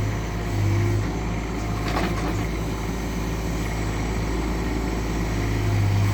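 Doosan DX19 mini excavator's diesel engine running steadily, its note swelling briefly near the start and again near the end as it takes load. A short clatter comes about two seconds in.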